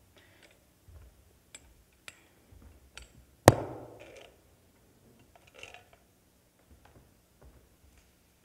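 Handling noise on a handheld microphone: scattered light clicks and ticks, with one sharp knock about three and a half seconds in that rings on briefly.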